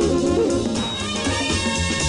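Lively background music with brass instruments over a repeating bass line, in a salsa-like style.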